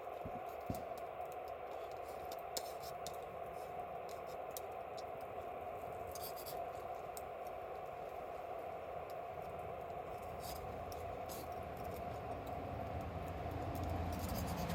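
Wood campfire crackling: scattered sharp pops and ticks over a steady hiss. A low rumble builds near the end.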